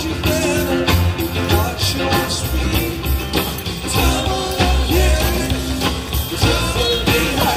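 Background music with singing and a steady beat.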